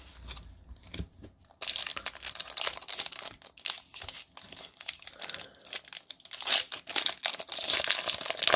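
Foil booster pack of Pokémon trading cards being torn open and crinkled by hand. Only a few quiet clicks at first; about a second and a half in the crinkling starts suddenly and keeps going.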